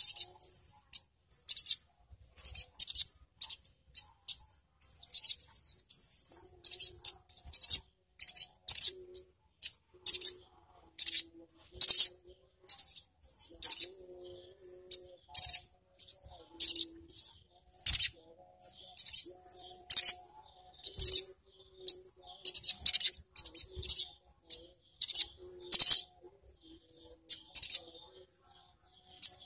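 Olive-backed sunbird (sogok ontong) chittering: short, very high-pitched bursts of notes, about two a second, over and over.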